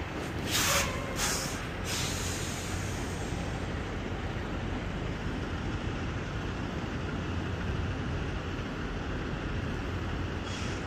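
Semi truck's diesel engine running steadily, with three short hisses of air between about half a second and two seconds in, and another near the end.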